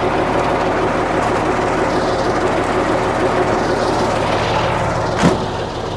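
Truck engine running steadily, a constant hum with a short extra sound about five seconds in.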